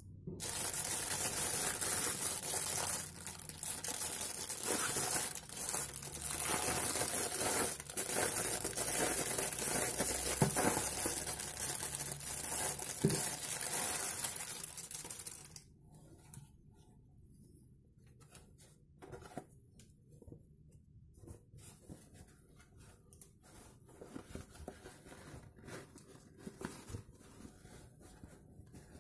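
Clear plastic bag crinkling and rustling loudly as a cap is worked out of it; the crinkling stops suddenly about halfway through. Faint rubbing and handling of the cap's fabric follows.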